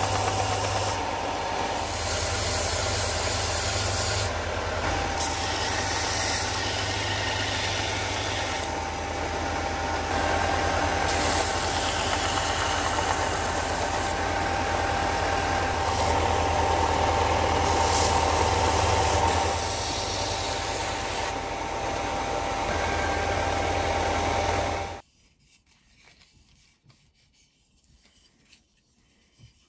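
Bench belt sander running with a steady motor hum as small pine blocks are pressed against the moving belt, the sanding hiss swelling and easing as the wood meets the belt. The sound stops abruptly about 25 seconds in, leaving only faint scraping.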